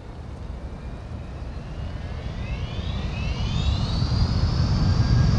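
Jet-engine-like rumble swelling steadily louder, with a whine that rises in pitch about two seconds in and then holds steady.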